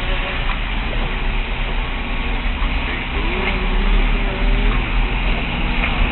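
Motor vehicle driving along a road, heard from inside the cabin: steady engine and road noise with a strong low rumble. Faint voices come through under it.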